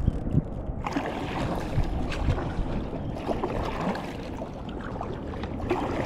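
Steady wind rumble on the microphone and water noise around an inflatable packraft, with scattered small knocks and splashes.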